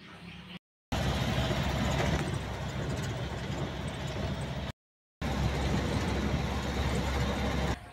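Steady road and engine noise of a vehicle on the move, heavy at the low end, in short clips broken twice by a split second of dead silence, once near the start and again about five seconds in.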